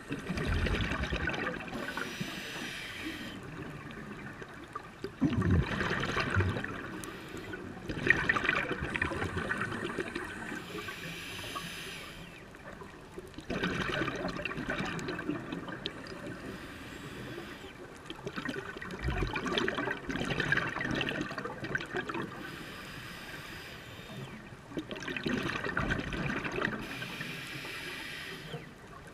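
Scuba breathing through a regulator underwater: exhaled air bubbling out in gurgling surges with a low rumble, alternating with quieter inhalation, repeating about every five or six seconds.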